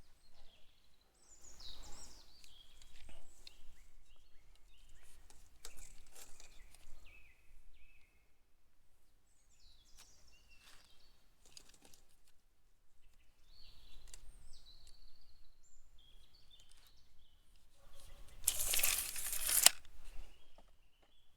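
Small birds singing in short chirping phrases, over scattered clicks and rustles of handling. Near the end a louder scraping rustle lasts about a second.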